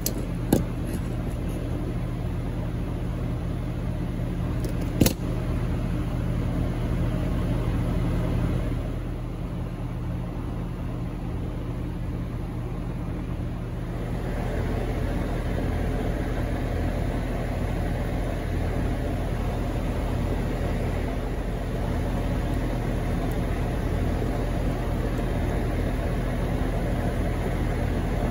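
A steady mechanical hum, with a sharp click just after the start and a louder one about five seconds in.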